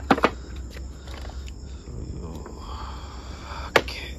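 Footsteps crunching and knocking on loose broken roof sheeting and rubble: two sharp knocks close together at the start and another near the end, over a steady low rumble.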